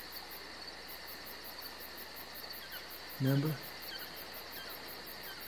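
Crickets chirping in a rapid, even rhythm: a steady night-time insect chorus.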